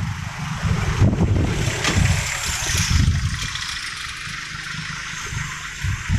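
Wind buffeting the microphone over road and traffic noise from a moving vehicle. The gusty rumble is loudest in the first three seconds, then eases.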